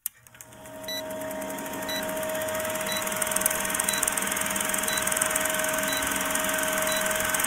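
Film-projector countdown sound effect: a projector whirring and rattling with a steady hum, fading in over the first second, with a short high beep once every second as the leader counts down.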